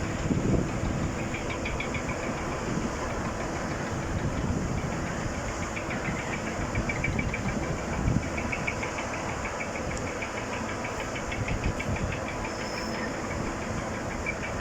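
Slipway machinery running as a yacht is lowered toward the water: a steady low rumble of a winch and cradle on rails, with fast, even metallic clicking in several stretches.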